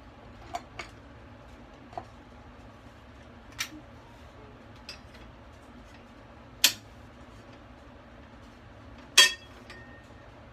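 Pots and a kettle being handled on a gas stove: a handful of separate sharp knocks and clinks of metal cookware. The two loudest come in the second half, and the last of them rings briefly.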